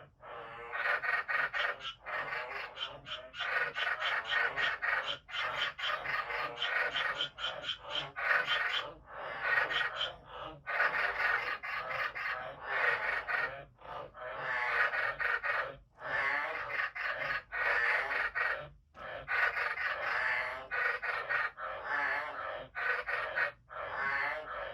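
Pet frogs calling in a dense chorus: overlapping rapid, rattling pulsed calls, broken by short pauses every second or two.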